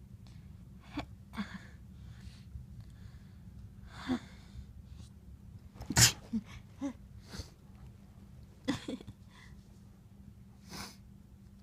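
A person sneezing several times in a row, set off by a tickle in the nose, with short breaths in between; the loudest sneeze comes about six seconds in.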